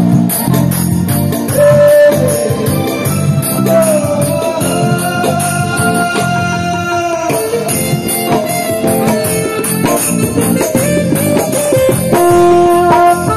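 Live band music over loudspeakers: a sliding melody line over keyboard chords, with a steady jingling, rattling percussion beat.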